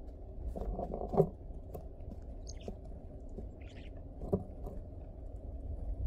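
Birds at a snowy feeding table: a few brief, high chirps over a steady low rumble, with scattered taps and clicks, the loudest about a second in.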